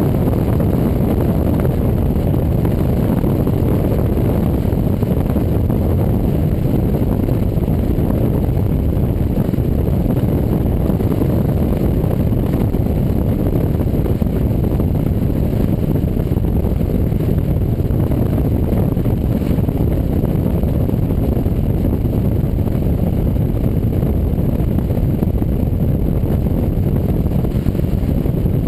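Exhaust of a Pontiac GTO's LS1 V8 with aftermarket heads and cam, running through a 3-inch true dual exhaust with an H-pipe and Borla Pro XS mufflers: a steady deep rumble as the car drives at an even speed.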